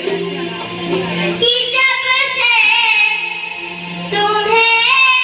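A young child singing a Hindu devotional song (bhajan) into a handheld microphone, amplified through a loudspeaker, with musical accompaniment. The voice comes in strongly about a second and a half in and holds long, wavering notes.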